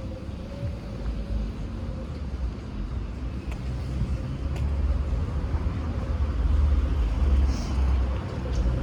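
City street traffic: motor vehicle engine rumble that grows louder over several seconds, over a steady low hum.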